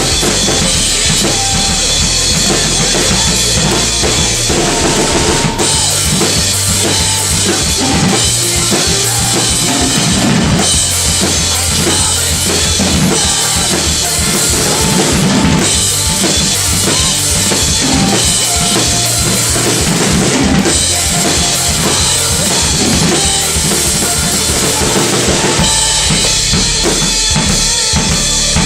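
Loud metalcore music dominated by a drum kit played hard: rapid bass drum and snare hits under a constant wash of cymbals, picked up by a camera's microphone.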